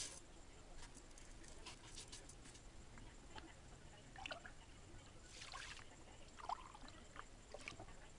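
Near silence, broken by faint small clicks and two brief hissy rustles, about five and a half seconds apart, of dry rice grains being poured and shifted in a pot.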